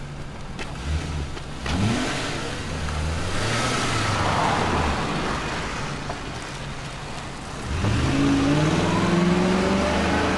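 Car engine accelerating, its pitch rising sharply about two seconds in and again near the end, with a steady engine hum between.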